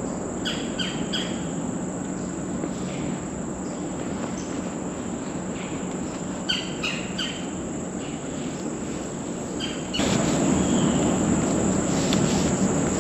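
A steady high-pitched insect chorus of crickets or katydids in late-summer woods, with short bird chirps now and then. A low rushing noise underneath grows louder about ten seconds in.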